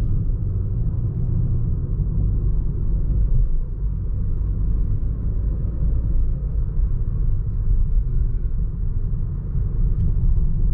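Steady low rumble of a moving car, road and engine noise heard from inside the cabin.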